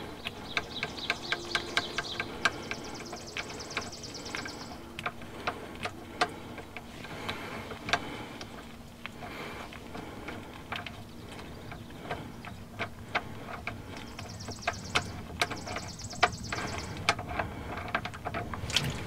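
An oil drain plug on a diesel truck's oil pan being turned out by gloved fingers, with irregular light ticks and clicks throughout. A high, fast-pulsing buzz comes in twice, for a couple of seconds each time.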